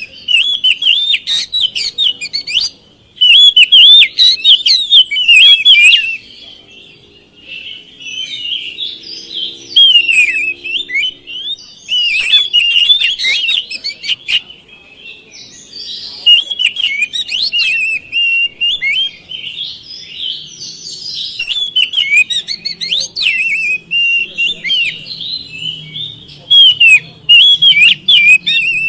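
Oriental magpie-robin (kacer) singing loudly in fast phrases of chirps, sweeping whistles and sharp clicking notes, broken by short pauses.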